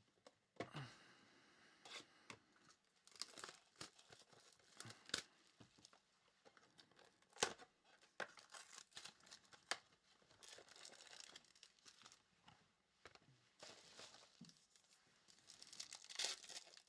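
Faint crinkling and tearing of trading card pack wrappers, with trading cards being handled: irregular small clicks and rustles throughout.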